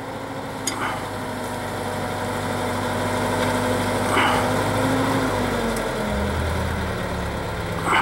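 Drill rig engine running steadily. About five to six seconds in its pitch steps down and the low rumble grows heavier, with a few brief noises over it.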